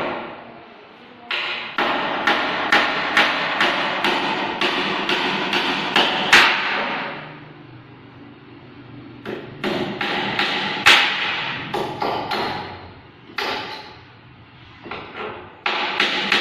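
Hammer knocking on wooden stair boards in runs of quick blows, about two a second. The blows break off for a couple of seconds about seven seconds in, and briefly again near the end.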